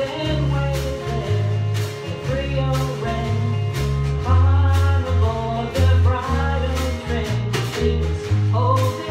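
A small band playing a song live: kit drums keeping a steady beat, electric and acoustic guitars, a strong bass line and a singing voice.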